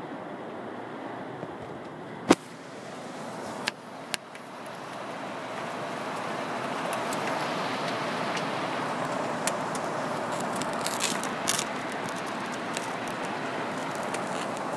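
Steady rush of storm rain and wind, swelling louder from about five seconds in as the sound opens up outdoors. A single sharp knock comes about two seconds in, followed by two softer clicks.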